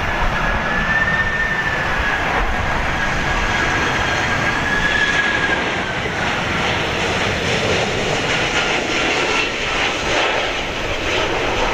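Boeing 767-300ER twin-jet airliner flying low overhead on final approach: loud, steady jet engine noise with a high turbofan whine that falls slightly in pitch and fades about halfway through.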